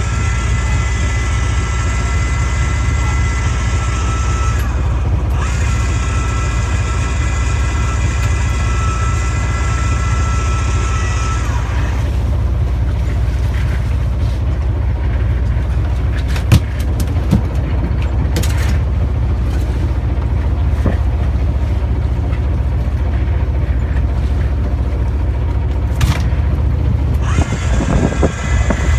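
Fishing boat's engine running steadily, with a high steady whine over it that stops about eleven seconds in and comes back near the end. A few sharp knocks sound in between.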